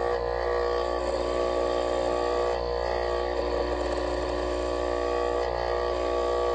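Dental lab vibrator humming steadily while dental stone is vibrated into an impression to drive out trapped air.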